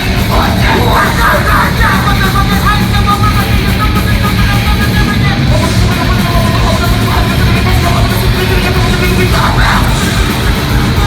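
A heavy metal band playing live, loud and dense throughout, with yelled vocals over the band shortly after the start and again near the end.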